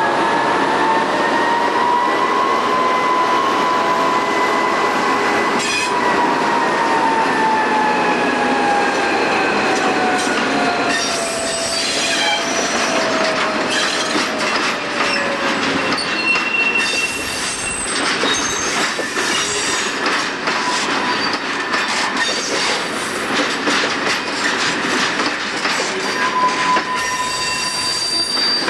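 SJ T44 diesel-electric shunting locomotive moving a string of covered freight wagons. A high whine rises over the first few seconds, holds, and then slowly falls through the first half. After that the rolling wagons' wheels squeal in high tones, with clanks and rattles.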